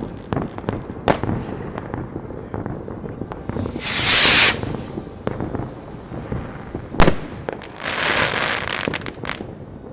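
Fireworks: many scattered bangs and crackles, with a loud hissing rush about four seconds in as a rocket goes up, a single sharp bang about seven seconds in, and a second hissing rush soon after as another rocket climbs.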